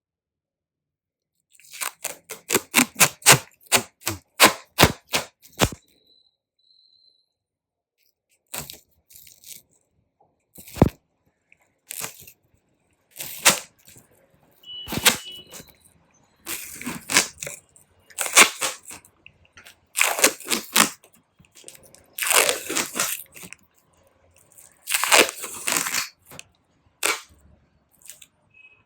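Duct tape being pulled off the roll and ripped. A quick run of sharp crackling snaps comes about two to six seconds in, then a string of longer rips, each lasting up to about a second, with one single sharp crack near eleven seconds.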